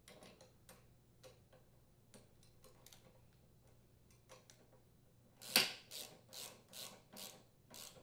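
Ratchet with a 10mm socket tightening the nut and bolt on a lawn mower's brake cable retainer. Light scattered clicks as the parts are fitted and the nut is started, then about six quick ratcheting strokes in the last few seconds.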